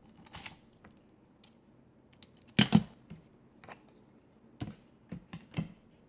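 Paper and cardstock being handled and set down on a tabletop: a few scattered short taps and rustles, the loudest a quick pair about two and a half seconds in and a few more near the end.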